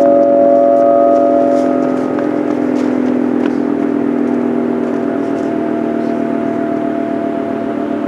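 Federal Signal 2T22 dual-tone electromechanical warning siren sounding its steady Full Alert tone, a held chord-like wail.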